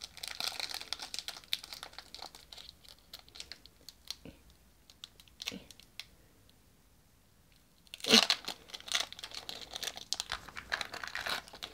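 Foil booster-pack wrapper crinkling and being torn open. The crinkling goes quiet for a couple of seconds about halfway through, then comes back louder near the end.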